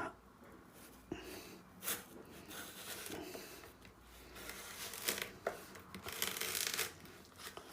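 Kitchen knife cutting through the rind of a whole watermelon to take off its top, heard as short irregular stretches of cutting noise with a few sharp clicks.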